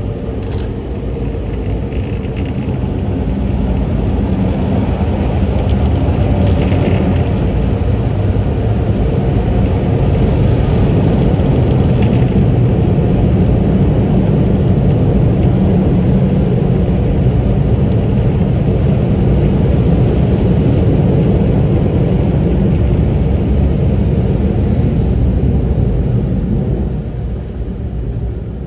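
Automatic car wash air-dryer blowers blowing over the truck, heard from inside the cab: a loud, steady rushing rumble that dies down near the end as the truck pulls clear of the wash.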